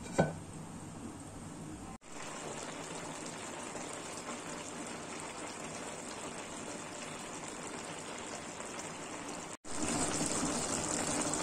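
Thick bean curry simmering in a pan, a steady bubbling hiss, louder near the end; a brief knock at the very start.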